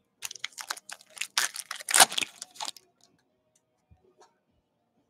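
Foil wrapper of a football trading-card pack crinkling and tearing as it is ripped open, a dense crackle lasting about three seconds and loudest near two seconds in. A few faint ticks of the cards being handled follow.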